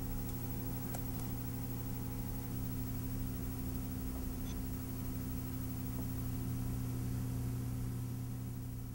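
Steady low hum with a background hiss, beginning to fade near the end.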